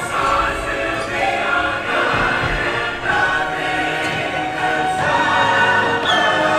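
Dark-ride soundtrack music with a choir singing, dense and steady, with a few falling whistle-like glides in the sound effects.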